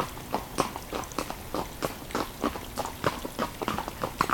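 A dog panting with its mouth open: quick, short breaths, about three or four a second.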